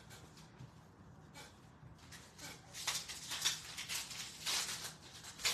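A trading-card pack wrapper being torn open and crinkled by hand: a run of crackly rustling that starts about three seconds in, after a couple of quieter seconds.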